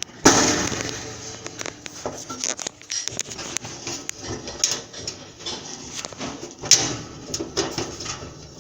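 Knocks, clatter and scrapes of sheet-metal dryer parts being handled and fitted by hand, with a loud bang just after the start and another about seven seconds in.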